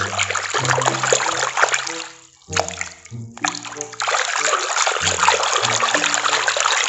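Water splashing and sloshing in a basin as a hand scrubs a muddy plastic toy elephant, with short pauses about two and three seconds in. A simple background tune plays underneath.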